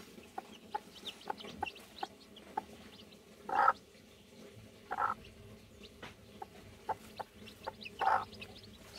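Broody bantam hen sitting over her newly hatched chicks, clucking: three louder short clucks about a third, halfway and near the end, with soft short calls in between.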